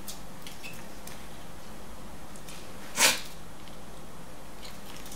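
Faint ticks and taps of small laptop parts being handled with a screwdriver inside an opened laptop chassis, with one short, louder clatter about three seconds in.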